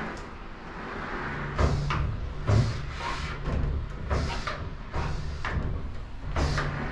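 Glass shower-enclosure door being moved by its handle, giving about six separate knocks and rattles, over a steady low hum.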